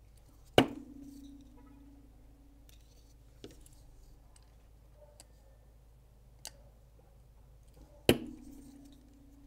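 Folding knife's blade snapping into place twice, each a sharp metallic click followed by a short ringing tone, with a few faint ticks between as the pivot screw is tightened to take out blade play.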